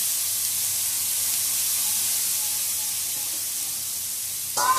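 Water droplets sizzling and hissing as they boil off a hot dosa tawa, the sign that the griddle is hot enough for the batter; the hiss fades a little as the drops dry up. A brief clatter near the end.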